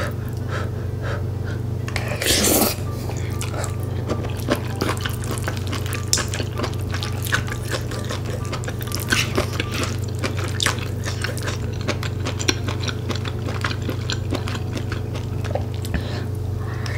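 Close-miked eating sounds: wet chewing, mouth clicks and slurping of glass noodles and saucy stir-fried octopus, tripe and shrimp with rice, with a louder wet sound about two seconds in. Background music plays underneath.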